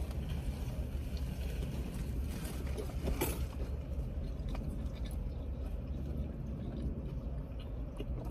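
Chewing a bite of crispy fried chicken sandwich, with a sharper crunch about three seconds in, over the steady low rumble of a car idling.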